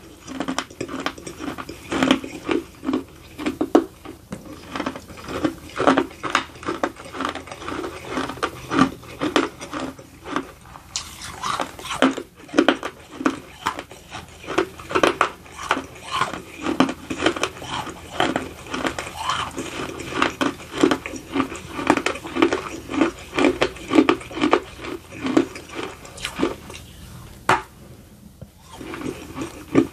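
Close-miked chewing of baked edible clay, a steady crunch about two chews a second. Near the end there is one sharp crunch as a fresh clay piece is bitten.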